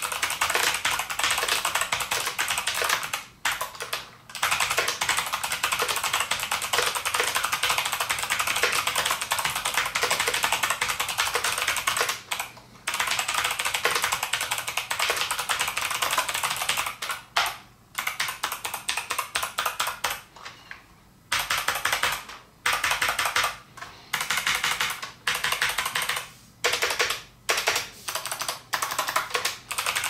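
Fast typing on a COX CK700 keyboard with Kailh optical switches: a dense, rapid clatter of keystrokes, broken by several short pauses, the longest about two-thirds of the way through.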